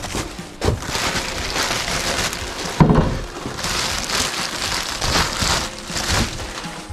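Clear plastic wrapping crinkling and rustling as it is pulled off a new aluminium radiator, with a thump about three seconds in.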